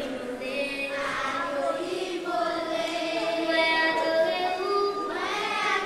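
A group of young girls singing a song together, with long held notes.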